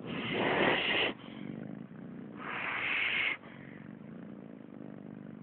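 A deeply sleeping pet breathing heavily: two long, noisy breaths about two seconds apart.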